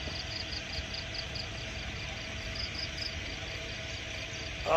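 An insect chirping in an even, fast pulse of about five high chirps a second, over a steady faint hum and low rumble.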